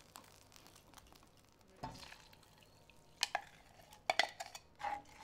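A spoon stirring onion soup mix into water, mostly soft, with a few short clinks of the spoon against the container in the second half.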